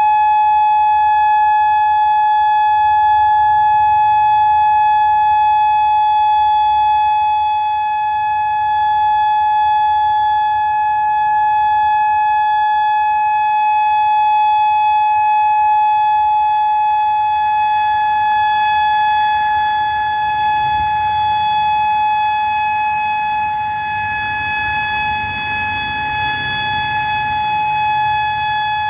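Federal Signal Modulator 5020B outdoor warning siren sounding the steady Alert signal, holding one unwavering tone with no rise or fall.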